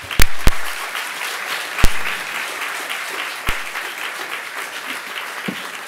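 Audience applauding steadily, with four loud thumps in the first three and a half seconds.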